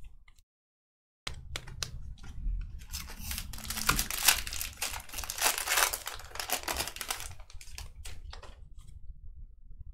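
Foil wrapper of a 2020 Panini Prizm football card pack torn open and crinkling, densest and loudest in the middle. Lighter clicking and rustling follow as the stack of cards is handled.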